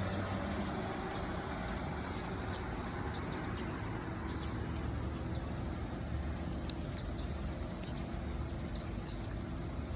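Steady low rumble of road traffic, a car engine running close by.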